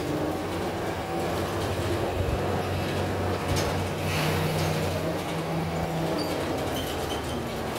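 Inside a moving city transit bus: a steady engine and drivetrain hum with road and tyre noise. A short rise of hiss comes near the middle.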